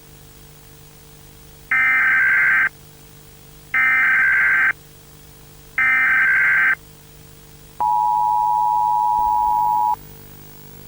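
Emergency Alert System signal: three loud, buzzy one-second bursts of SAME digital data tones about a second apart, then the two-tone EAS attention signal held steadily for about two seconds. A faint steady low hum runs underneath.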